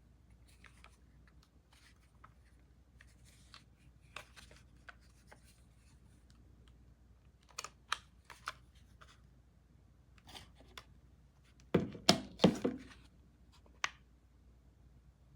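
Light handling noises, scattered soft clicks and rustles, then a quick cluster of louder sharp crackling, tearing-like sounds about twelve seconds in and a single click near the end.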